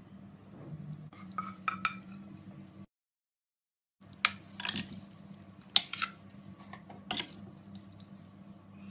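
A metal spoon clinks against a glass bowl as thick tomato sauce is stirred through boiled bulgur dumplings. There are a handful of sharp clinks, a faint clatter early on, and a second of dead silence near the middle.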